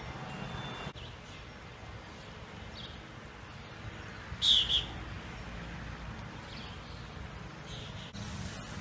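A bird chirps a few short times, the loudest call a quick double chirp about halfway through, over a steady low rumble.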